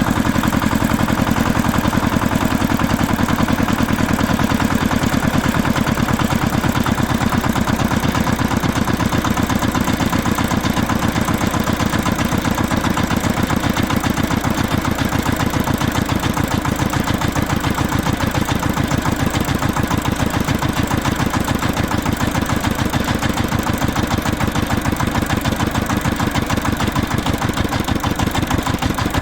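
Lawn tractor engine running steadily at idle, with an even, rapid firing pulse.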